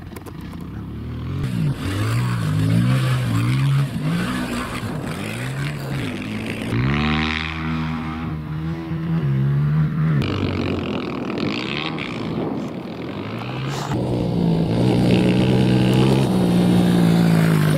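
Dirt bike engine revving up and down over and over, its pitch climbing with each burst of throttle and dropping back, working hard on a steep dirt hill climb. It settles into a steadier high run near the end.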